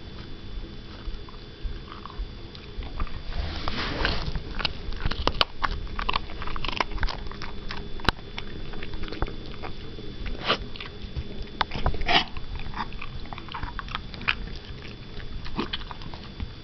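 A small dog biting and crunching a large piece of dry kibble: a run of irregular crunches and clicks, heaviest about four seconds in and again near twelve seconds.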